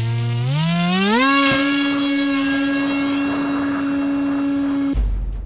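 Small electric RC model airplane's motor and propeller spinning up for a hand launch: a whine that climbs steeply in pitch over about a second, then holds steady at full throttle. Near the end it cuts off abruptly to a low rumble.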